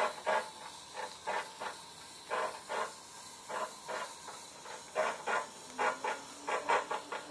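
Spin bike making an odd noise: short scraping, hissing bursts repeated over and over, a few a second. They come closer together in the last couple of seconds.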